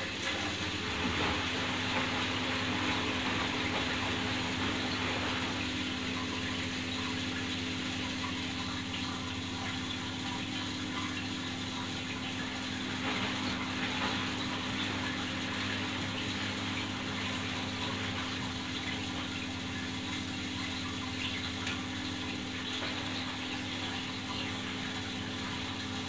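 1980 Candy Primato front-loading washing machine tumbling its wash load in water in the stainless steel drum: water sloshing and rushing over a steady motor hum.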